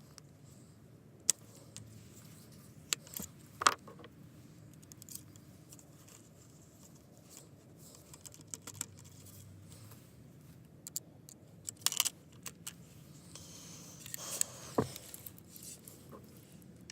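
Scattered sharp clicks and light metallic rattling of gear being handled close to the microphone, a few louder clacks among them.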